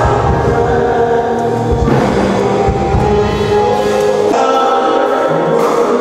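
Music: a choir singing with instrumental backing. The bass and beat drop out about four seconds in, leaving the held voices and higher instruments.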